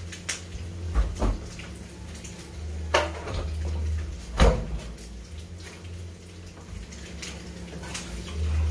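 Scattered knocks and clicks of things being handled in a kitchen, with a sharp thump about four and a half seconds in the loudest, over a low steady hum.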